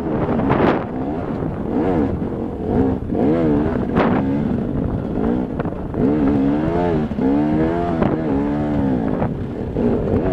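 Enduro motorcycle engine revving up and down under throttle on a rocky climb, its pitch rising and falling again and again, with a few sharp knocks from the bike over rocks.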